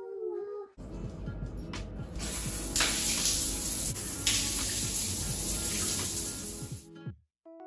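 Handheld shower head running, water spraying onto a tiled wall in a steady hiss that grows louder about three seconds in and stops near the end. A brief voice comes just before it, and music starts as it ends.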